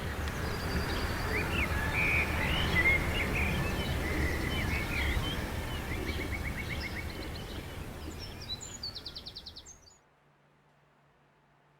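Outdoor ambience: a steady rushing noise with several small birds chirping over it, including two short rapid trills. Everything cuts off abruptly about ten seconds in, leaving near silence.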